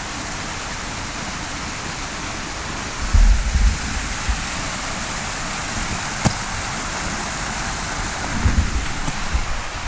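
Steady rushing hiss of water, as of meltwater running or falling. There are low thumps about three seconds in and again near the end, and a single sharp click just after the middle.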